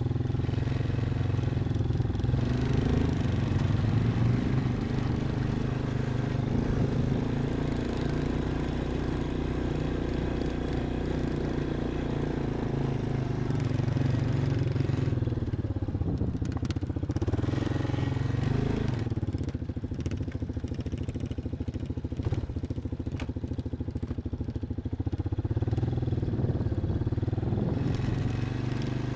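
Off-road vehicle engine running at low, steady revs while driving over rough terrain. The engine speed dips and rises a couple of times, with occasional knocks and clatter from the vehicle.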